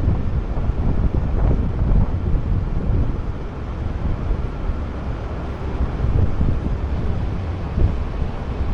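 Low, uneven rumble of a heavy truck, with wind buffeting the microphone.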